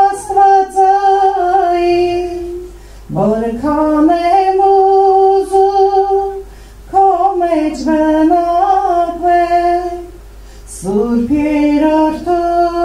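A woman singing a hymn solo and unaccompanied into a handheld microphone, in long phrases of held notes with a slight waver, pausing briefly for breath three times.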